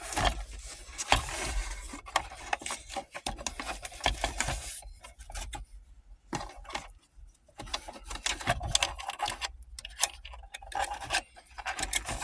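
Hands working on plastic interior trim and parts around the shifter: irregular clicks, taps and rubbing, with a quieter stretch in the middle.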